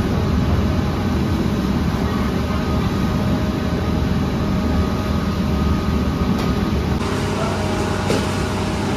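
Bakery machinery running steadily: a continuous low mechanical rumble and hum.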